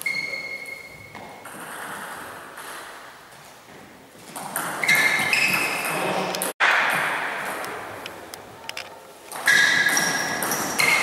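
Table tennis rally: the celluloid ball ticking off bats and table, with short high shoe squeaks on the court floor. The sound drops out for an instant about six and a half seconds in.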